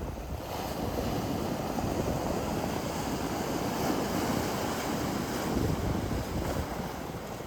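Sea waves washing onto the shore in a steady surging wash, with a low rumble of wind on the microphone.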